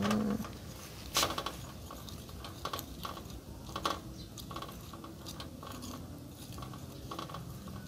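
Metal spoon stirring and scraping in a ceramic bowl, mixing crispy-fry flour with water into batter: irregular clinks and scrapes, with a louder clink about a second in.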